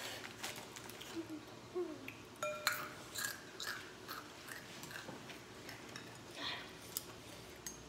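Eating noodle soup: chewing, with chopsticks and a spoon clicking against glass bowls in short, irregular taps.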